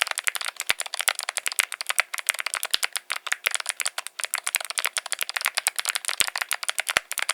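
Fast typing on a Link65 custom mechanical keyboard with Gateron Melodic clicky switches: a rapid, continuous stream of sharp key clicks.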